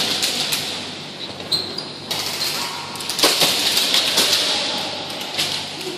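Airsoft guns firing in bursts, sharp clicks and cracks over a steady hiss, busiest about three to four and a half seconds in, in a large hall.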